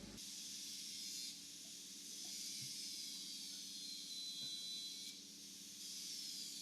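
Stick (SMAW) welding arc burning on pipe, a steady high hiss that eases briefly about a second in and again about five seconds in.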